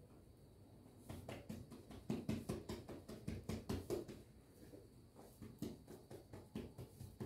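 Hands patting and slapping bread dough: a quick run of soft pats, about three to four a second, that thins to scattered taps after about four seconds.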